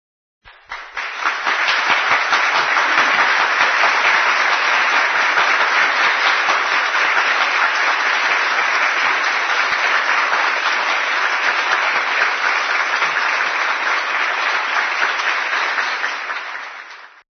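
Audience applauding: a dense, steady clapping that starts about half a second in and cuts off suddenly near the end.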